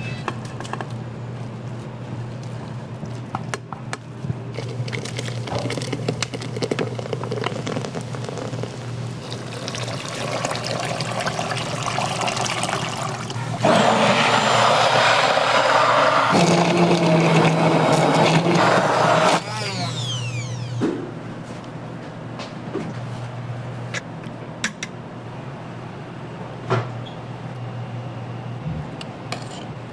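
Water running hard from a tap for about six seconds in the middle, over a steady low hum, with light clatter before and after.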